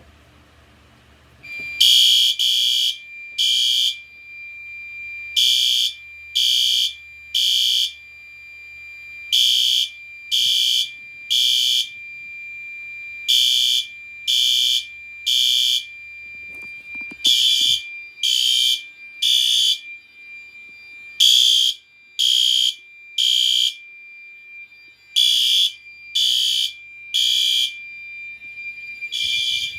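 Fire alarm horns, a System Sensor SpectrAlert Advanced and a Gentex Commander 2, set off for a test. They start about a second and a half in, sounding loud, high-pitched blasts in the temporal-three evacuation pattern: three short blasts, a pause, and then again, about every four seconds. A steady high tone sounds continuously underneath.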